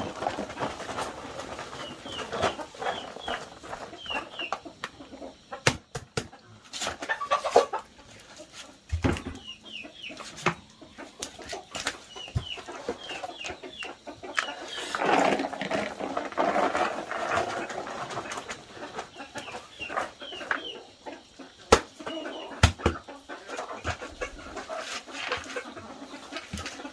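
Chickens clucking, with runs of short, high, falling chirps and a few sharp knocks scattered through.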